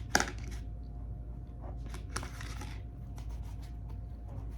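Handling noises: a sharp click, then a short rustle about two seconds in and a few light clicks a second later.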